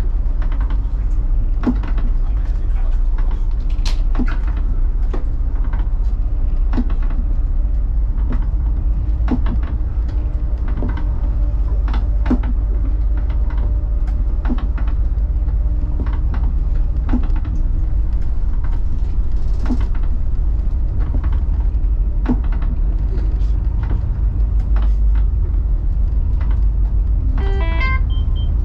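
Steady low rumble of an escort tug's engines and hull, heard inside the wheelhouse, with irregular sharp knocks and rattles. Near the end, a short run of beeps climbs in pitch.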